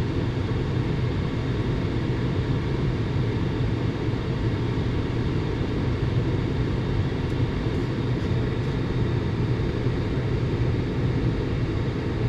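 Gas furnace's fan motors running: a steady, even rumbling hum.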